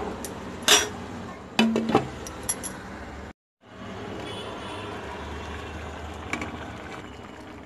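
Thick vegetable-and-greens curry simmering and bubbling in a pan over a steady low rumble, with a few clinks of a utensil against the pan in the first two seconds. The sound drops out briefly a little before halfway.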